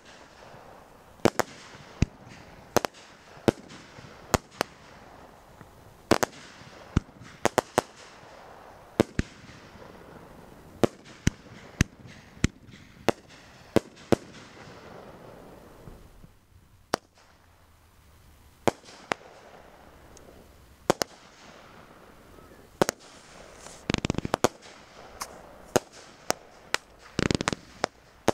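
Consumer aerial fireworks going off: a string of sharp bangs, one or two a second, as shots launch and burst overhead. There is a short lull a little past halfway, then two rapid clusters of bangs near the end.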